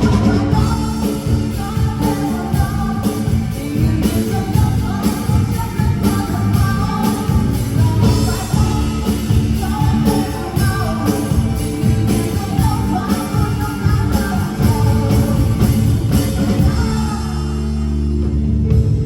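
A band playing rock music with drums, guitar and bass at a sound check. About two seconds before the end the drumming stops and a held chord rings on.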